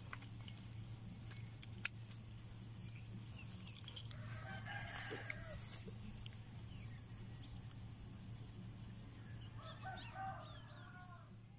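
Rooster crowing twice, a little over four seconds in and again near the end, over a steady low hum.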